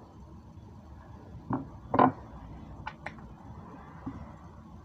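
Button mushroom caps handled and set down on a ceramic plate: two soft knocks about one and a half and two seconds in, then two light clicks about a second later.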